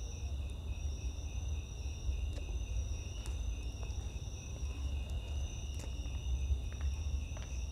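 Crickets chirping steadily in several overlapping high trills, over a low steady rumble, with a few faint ticks.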